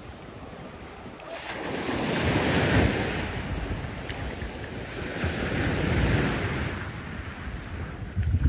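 Small waves breaking and washing up a sandy beach, the surf swelling twice, with wind rumbling on the microphone.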